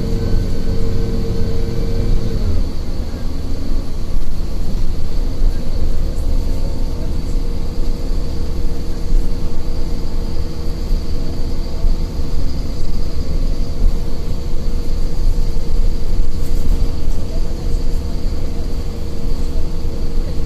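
City bus driving, heard from inside the passenger cabin: steady low engine and road rumble with a faint high whine, and the engine note changes about two and a half seconds in.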